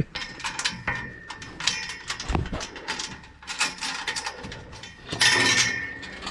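A run of short mechanical clicks and rattles, with a louder high squeak lasting about half a second, about five seconds in.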